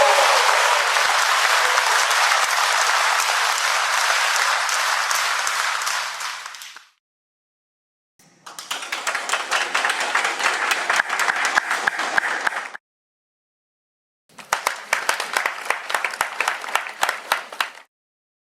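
Three separate recordings of an audience applauding, with silent gaps between them. First a dense round of applause that fades out about seven seconds in, then a round of clapping lasting about four seconds, then a shorter round in which individual claps stand out.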